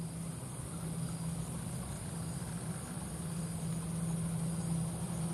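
Distant Airbus A321-211 jet engines (CFM56) running at a steady low hum, with no spool-up yet. A steady high-pitched insect buzz from the grass runs under it.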